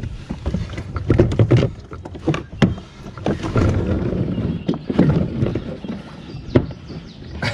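Irregular knocks, bumps and rustling as a person climbs into a fishing kayak and settles onto its seat, the hull and seat frame knocking under his weight and movement.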